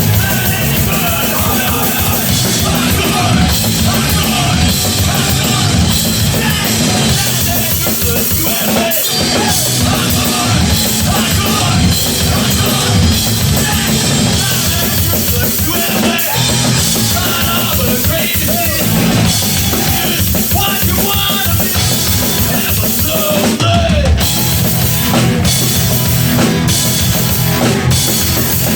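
Live hardcore punk song: fast drum kit, distorted guitar and bass played loud, with a few short breaks in the playing.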